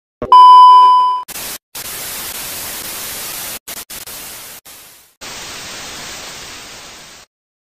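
A loud, steady test-pattern beep of about a second, then television static hiss that cuts out and back in several times and stops about seven seconds in.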